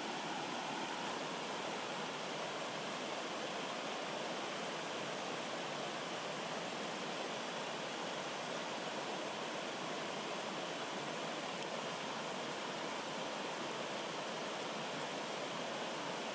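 Rocky stream rushing over small cascades: a steady, even sound of running water.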